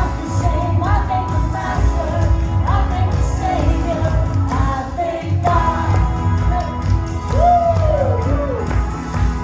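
Praise music: a solo voice sings a gliding melody over a band with a steady, pulsing bass beat.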